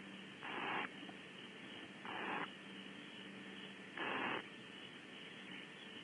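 Barn owl nestlings giving their hissing begging call, often called snoring: three short raspy hisses about a second and a half to two seconds apart. A faint steady hum runs beneath.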